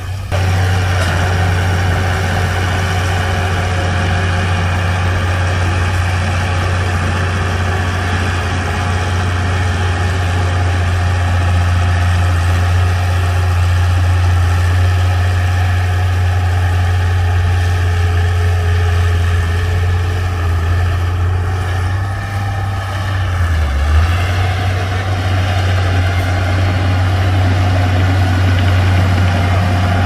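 Komatsu crawler bulldozer's diesel engine running with a steady low drone, dipping briefly in pitch late on.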